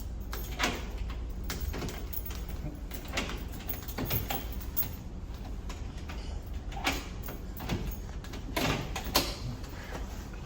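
Scattered knocks and clicks of things being handled, a few of them sharper, over a steady low rumble.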